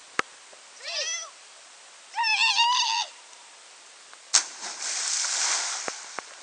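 A person jumping from a rock cliff into a lake: a sharp smack as the body hits the water about four seconds in, then a couple of seconds of splashing spray falling back, with a few drips after. Before the jump, two high-pitched wavering cries.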